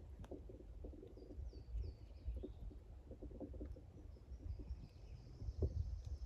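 Wild birds chirping in spring woodland, with a handful of short, falling high notes about a second in. Underneath runs a low rumble with scattered soft thumps and rustling.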